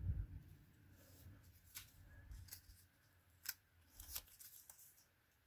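Faint handling of cardstock: a soft low bump at the start, then a few short, sharp paper crackles as a paper bow is pressed and held onto a cardstock belly band.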